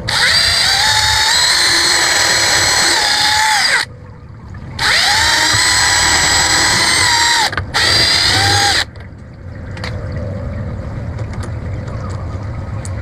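Power drill running in three bursts. The first two last a few seconds each, and the third is short. The motor's whine holds a steady pitch, stepping up and sliding down at the start and end of each run.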